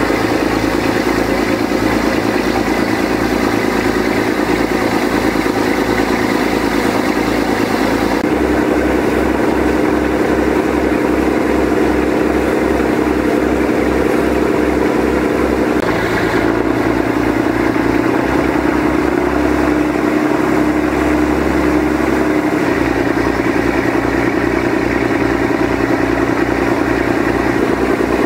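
Motorboat engine running steadily at speed, its note changing abruptly twice, over the wash of water churning in the boat's wake.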